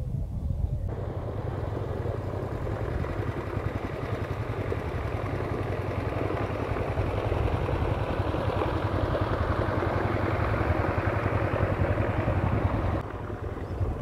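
Small motorboat's engine running steadily with a low rumble. A rushing noise joins it abruptly about a second in and cuts off near the end.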